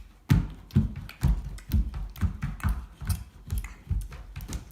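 Homemade borax slime being squeezed and slapped by hand, making short low squelching thuds about twice a second.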